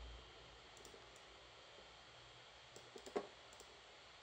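A quick cluster of faint computer mouse clicks about three seconds in, over near silence.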